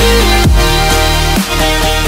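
Electronic dance music in an instrumental stretch: steady synth notes over heavy bass, with two deep bass hits falling in pitch about a second apart.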